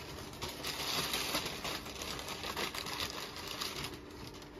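Packing paper crinkling and rustling as items are dug out of a shipping box, a dense run of small crackles and rustles.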